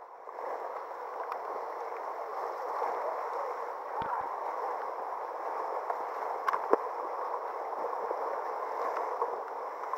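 Whitewater of a river rapid rushing steadily, heard close from a kayak, with a few short sharp knocks about four seconds in and again near seven seconds.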